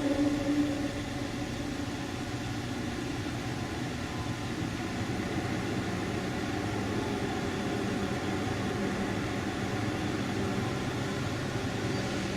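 A steady low drone with a hissing haze and faint humming tones, recorded as an unexplained 'strange sound' in the night sky. A louder two-tone hum fades out in the first second.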